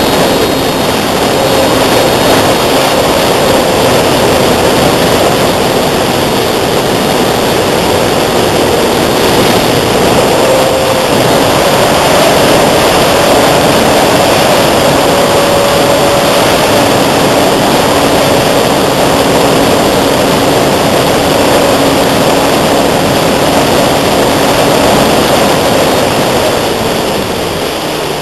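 Radio-controlled AcroMaster model plane's motor and propeller droning in flight, buried under loud wind noise on the microphone. It eases off near the end.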